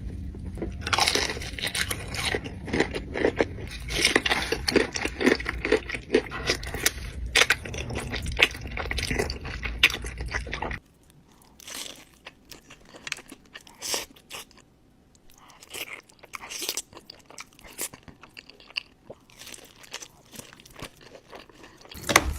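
Close-miked crunching and chewing of crispy food, dense and loud for about the first eleven seconds, then cutting off suddenly to quieter, sparser chewing and small scrapes, with a sharp loud crunch near the end.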